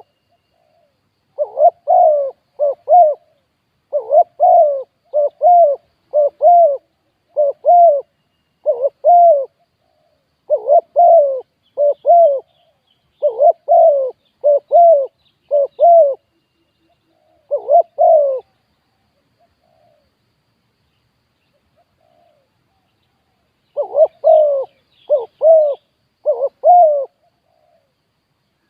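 Spotted dove cooing: phrases of short, arching coos repeated one after another, with a pause of several seconds about two-thirds of the way through before it starts again.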